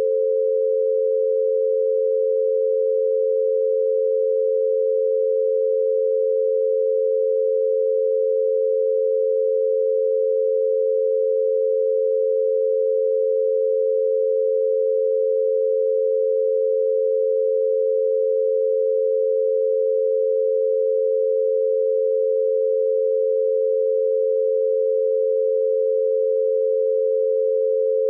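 88 Hz binaural beat: two steady pure tones close together in pitch, held unchanging and loud, meant to be heard one in each ear through headphones.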